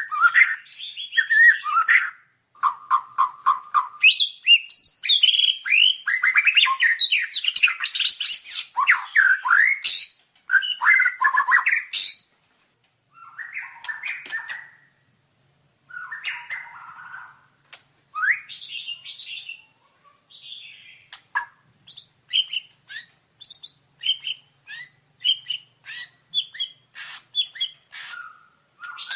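White-rumped shama (murai batu) singing. A long run of loud, varied whistled and chattering phrases breaks off about twelve seconds in. After a few short gaps and some buzzier phrases, a series of short, sharp separate notes runs to the end.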